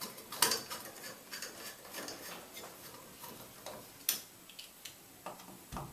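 A long screw being turned in by hand to fasten a shower valve trim plate: faint, irregular ticks and small metallic clicks, with sharper clicks about half a second in and about four seconds in.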